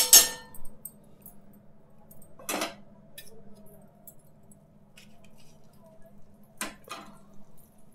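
A metal spoon clattering and scraping against a tawa as a lump of butter is knocked off onto the griddle, followed by three more short clinks, one about two and a half seconds in and two close together near the end, over a low steady hum.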